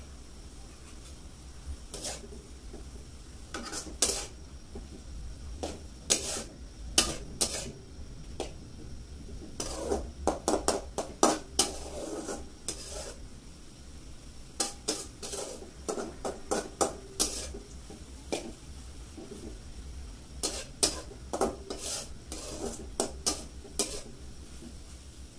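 A metal spatula scraping and clinking against a metal kadai as noodles are stirred and tossed, in irregular runs of scrapes and knocks.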